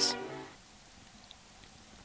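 Background music ends, its last note dying away within about half a second, leaving a faint steady hiss with a small tick near the middle.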